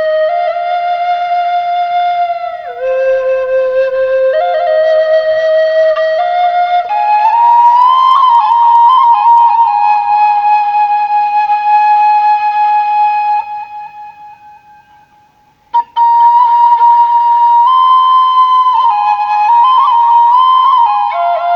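Flute playing a slow melody of long held notes that step up and down in pitch. About two-thirds of the way through it fades away, a short click follows, and the melody starts again.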